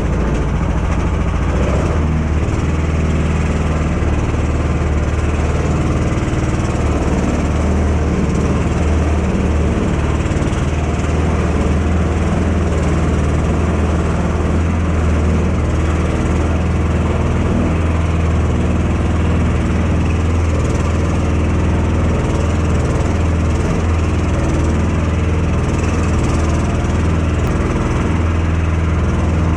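Engine of a karakat, a homemade swamp all-terrain vehicle, running steadily under way with a strong low hum.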